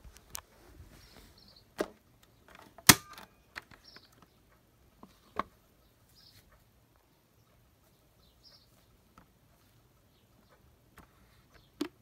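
Scattered plastic clicks and knocks from handling a toy washing machine, with one sharp knock about three seconds in and a click near the end as its porthole door shuts. No motor is running.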